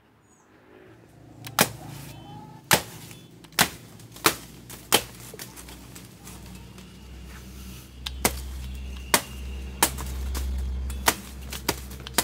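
Machete chopping into the soft, fibrous pseudostem of a banana plant: about ten sharp strikes, starting a second or so in, with a pause of a few seconds in the middle.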